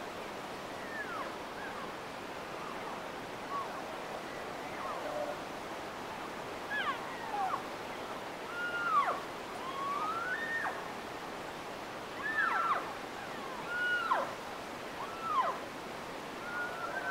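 Elk cows calling back and forth: many short, high, whining mews, most falling in pitch and a few rising, coming more often after about six seconds, over a steady background hiss.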